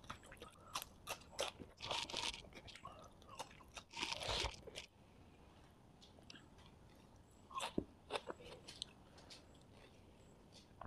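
Close-miked crunching and chewing of crispy fried quail, dense for about the first five seconds, then fading to quiet chewing with a few soft mouth clicks near eight seconds.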